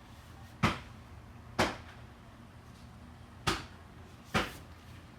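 Four sharp knocks or taps, irregularly spaced, each dying away quickly.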